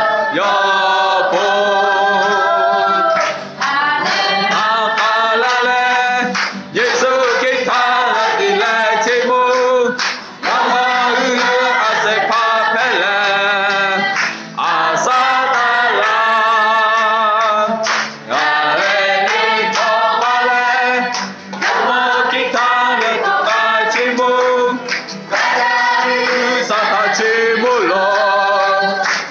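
A congregation of men and women singing a worship song together in Lahu, with acoustic guitar accompaniment, in phrases separated by short breaks every few seconds.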